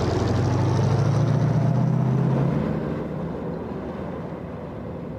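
Expedition vehicle's engine running steadily with a low drone, loud at first and then fading away about three seconds in.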